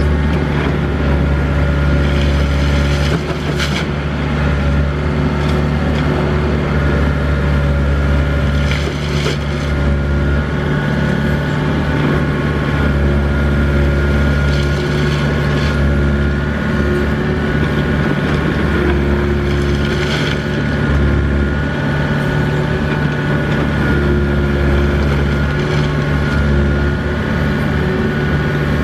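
Doosan DX55 mini excavator's diesel engine running steadily as it digs, with a brief rasping rush every five or six seconds as the machine works.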